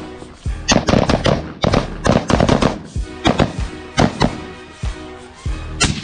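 Rifle shots from carbines over background music. Rapid strings of shots come in the first few seconds, then single shots roughly a second apart.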